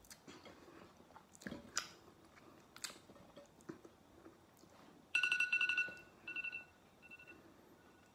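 Smartphone countdown timer alarm going off as the timer runs out: about five seconds in, a rapid run of high electronic beeps starts, followed by shorter bursts of the same beeps.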